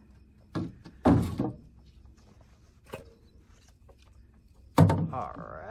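Scattered knocks and bumps from a frog gig and a speared bullfrog being handled in a canoe. The loudest is a sharp knock near the end.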